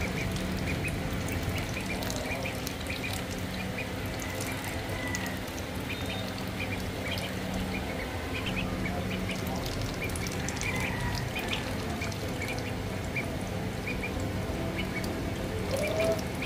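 Two ducklings dabbling and pecking at wet food in a plastic dish, their bills making quick, irregular small clicks, with a few faint peeps now and then. A steady low hum runs underneath.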